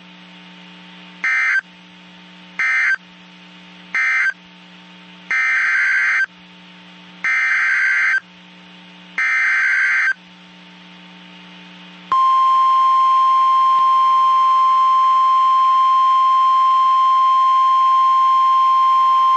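NOAA Weather Radio alert signalling: three short bursts of screeching digital data tones, then three longer ones (the SAME code bursts), followed about 12 seconds in by the loud, steady 1050 Hz warning alarm tone that announces a new warning. A faint low hum runs underneath between the bursts.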